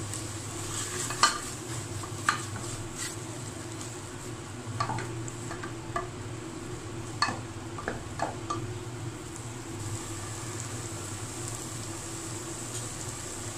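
A spatula stirring and scraping a frying onion-tomato masala around an aluminium pressure cooker, with sharp knocks against the pot in the first half. A low, steady sizzle of frying runs underneath.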